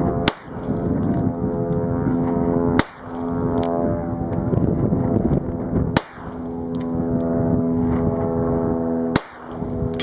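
Four shots from a Springfield Armory XD9 Tactical 9mm pistol, about three seconds apart. Each is followed less than a second later by a faint high ping: the bullet striking the AR500 steel target 150 yards away. A steady low drone runs underneath.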